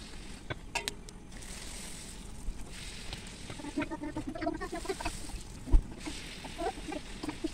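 Luchi deep-frying in hot oil in a kadai, a faint steady sizzle with light clicks of a slotted metal spatula against the pan. From about four seconds in, short repeated animal calls sound in the background.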